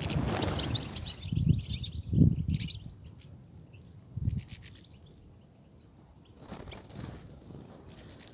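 European goldfinches twittering in quick high chirps through the first three seconds, mixed with several dull low thumps; after that it goes quieter, with one more thump about four seconds in.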